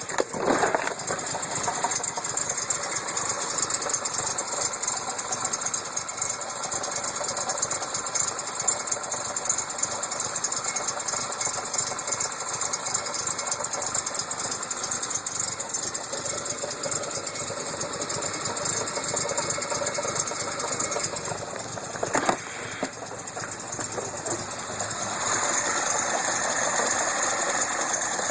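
Datsun engine running with a fast, steady knocking: the odd knock being tracked down. It gets louder near the end.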